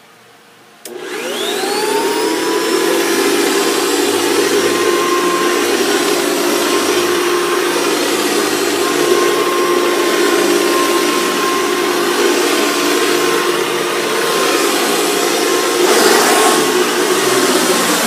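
Hoover Decade 80 upright vacuum cleaner switched on about a second in, its motor spinning up with a rising whine and then running steadily while it is pushed over carpet. The sound grows louder and rougher near the end.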